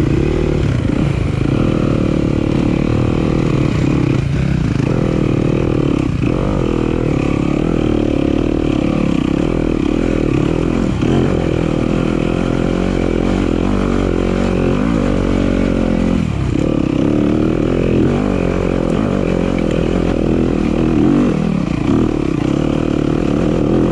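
Single-cylinder enduro dirt bike engine running hard on a trail ride, its note rising and falling with the throttle and dropping briefly several times.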